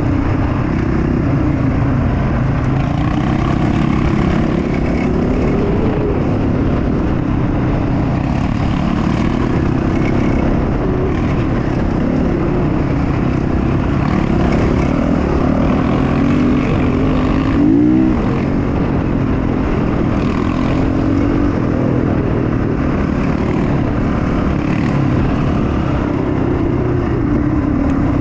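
Quad bike engine running while riding, its pitch rising and falling with the throttle. A brief sharp rev comes about two-thirds of the way through.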